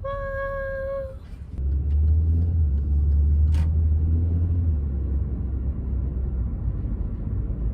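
Car pulling away, heard from inside the cabin: a loud, steady low rumble of engine and road noise that starts about a second and a half in, with a single click a couple of seconds later. Before that, a steady pitched tone is held for about a second.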